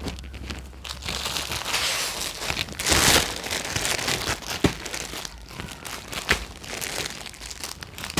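Clear plastic saree packets crinkling as they are handled and moved about on a pile of sarees, loudest about three seconds in.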